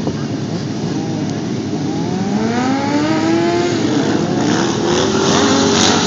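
Motorcycle engines running, their pitch rising and falling; about two seconds in, one bike accelerates with its engine note climbing steadily for a couple of seconds.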